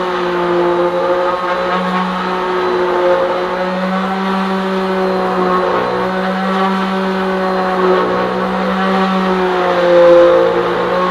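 Electric palm sander with 120-grit paper running on the wood of a chest of drawers: a steady motor hum that wavers slightly in pitch, with a louder swell near the end.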